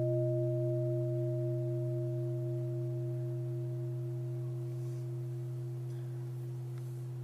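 A large meditation bowl bell ringing out after a strike: a deep, steady hum with a few higher tones above it, fading slowly away.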